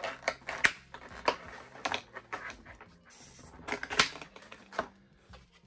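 Clear plastic clamshell packaging being pried apart and handled, crackling with a string of sharp, irregular clicks and crinkles.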